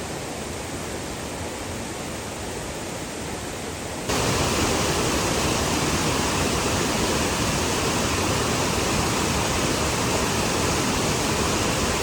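Steady rushing roar of a waterfall, which jumps abruptly louder about four seconds in.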